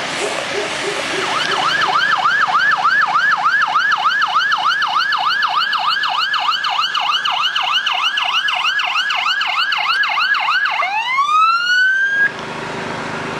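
Fire engine siren in fast yelp mode, a quick rising sweep about three times a second. Near the end it changes to a slower rising wail, then cuts off suddenly, leaving a low steady hum.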